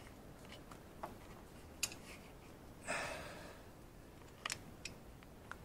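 Scattered small clicks and knocks of hand tools and metal parts being handled during motorcycle reassembly, with a brief scraping rustle about three seconds in.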